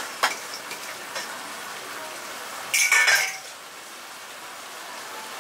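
Steel plate and ladle clinking against a kadhai as crushed fried onions are scraped into the masala, with a few light clicks and one louder, half-second metallic clatter about three seconds in. Thick masala sizzles quietly in the pan underneath.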